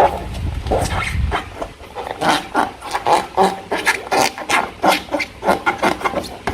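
Slime being squeezed and kneaded by hand: irregular wet squelches and small sticky pops, several a second, with a low rumble in the first second or so.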